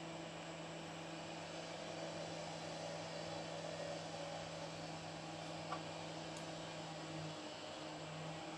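A machine's steady low hum over a background hiss; near the end the hum drops out and comes back in patches. A faint click sounds partway through.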